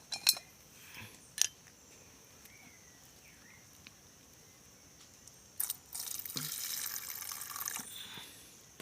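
A few light clicks and knocks, then about five and a half seconds in a liquid pours for around two and a half seconds: alcohol fuel being poured into a camp stove.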